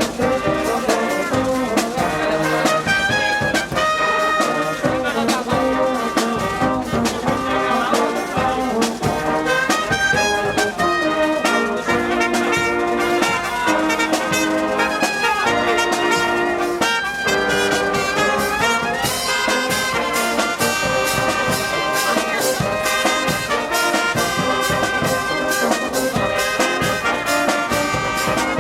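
Brass orchestra of trumpets and trombones playing a melody in full chords over a steady beat.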